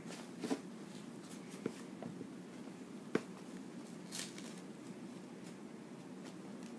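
Faint rustling and a few light knocks from hands handling a reborn doll and fastening its diaper, over a steady low hum.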